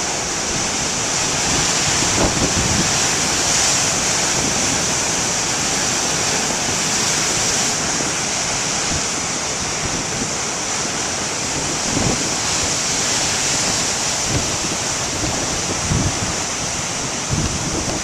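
Big ocean waves breaking and washing in a steady roar of surf, with wind buffeting the microphone in a few brief low thumps.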